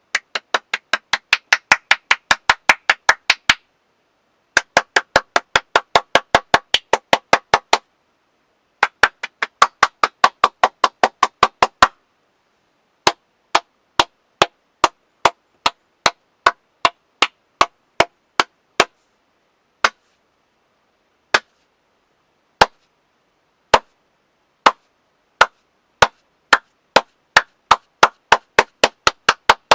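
One person clapping their hands: three quick runs of about six claps a second with short breaks between them, then slower single claps that spread out to about one a second, quickening again near the end.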